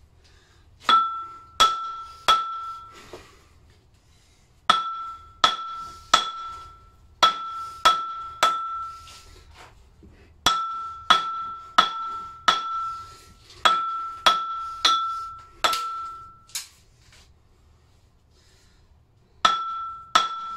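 Heavy lump hammer blows on the steel crankshaft and flywheel of a 1950 Lister D stationary engine, driving out a seized crankshaft. About twenty ringing metallic strikes come in groups of three to five, about two-thirds of a second apart, with short pauses between groups.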